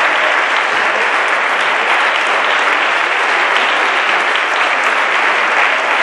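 Theatre audience applauding steadily, a dense, even clapping that holds throughout.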